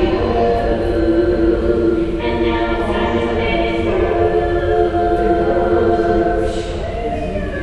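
A choir singing long held chords in harmony, moving to a new chord about two seconds in.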